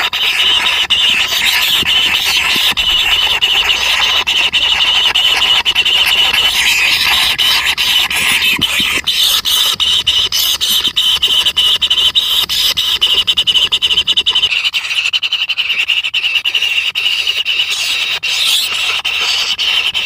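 White-throated kingfisher nestlings begging for food, a continuous high, rasping chorus of rapid notes.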